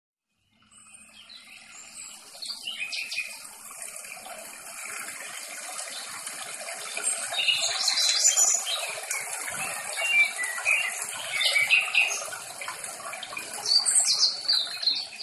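Running water with birds chirping over it, fading in at the start and swelling and easing in level.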